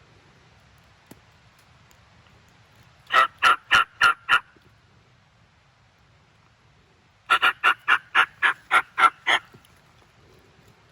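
Wild turkey yelping: a run of five evenly spaced, loud yelps, then after a pause a longer run of about nine.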